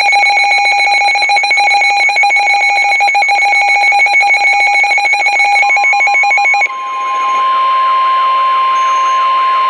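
A weather alert radio's alarm sounding a rapid, continuous beeping. Over halfway in, it is joined by the steady NOAA Weather Radio 1050 Hz warning alarm tone, which announces a new warning. The beeping stops about a second later and the long single tone carries on alone.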